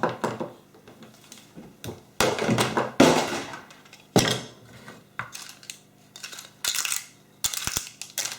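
Parts and tools being handled and set down on a workbench: a series of clatters, knocks and clinks, the loudest a couple of seconds in.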